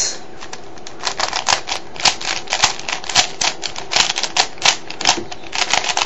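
A 3x3 Rubik's cube being turned quickly by hand: a rapid, irregular run of plastic clicks and clacks as the layers snap round, starting about a second in. The turns are an algorithm that moves an edge piece into its place in a blindfolded solve.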